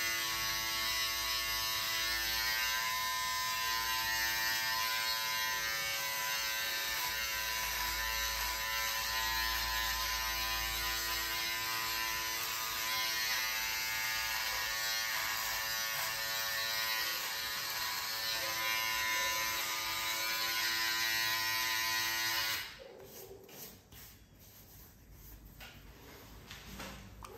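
Philips electric beard trimmer with a comb guard buzzing steadily as it cuts stubble along the cheek and jaw, then switched off about 23 seconds in.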